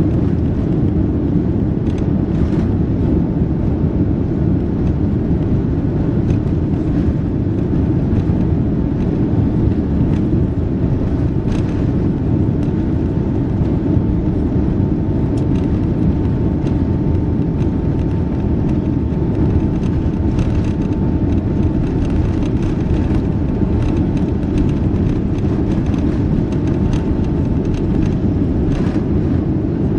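Steady low rumble inside the cabin of an Airbus A350 taxiing: its Rolls-Royce Trent XWB engines at low thrust and the wheels rolling. A faint steady whine runs through the middle, with a few light clicks.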